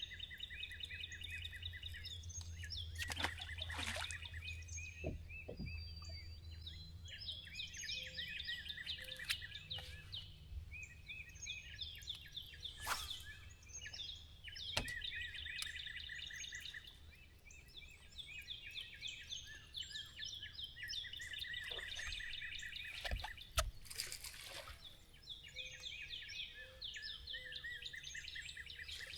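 Songbirds singing in phrases of fast, repeated chirps that come again and again, with a few sharp clicks and knocks between them.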